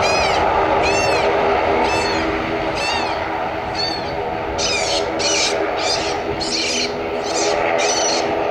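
An ATR 42-500's twin Pratt & Whitney PW127 turboprop engines running steadily at low power while taxiing, a steady hum with a tone near 1 kHz. Over it come high arching animal calls about once a second, turning into quicker buzzy calls about halfway through.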